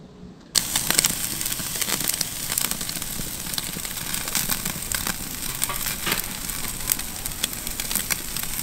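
Two steaks sizzling on a stainless-steel grill grate over glowing coals, with dense, steady crackling from the fire beneath; it starts suddenly about half a second in.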